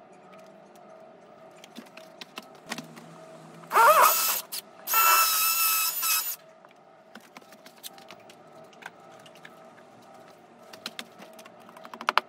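Power drill boring holes into a plastered wall for wall plugs: two short runs of drilling, about four and five seconds in. A quick cluster of sharp taps comes near the end.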